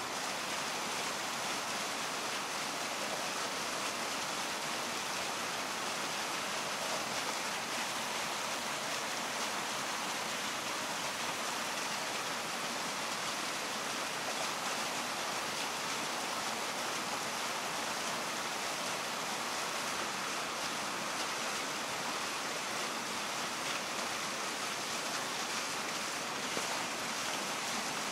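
Iwatani-Primus P-153 canister gas stove burning at a steady, even hiss under a pot of water that is heating but not yet boiling.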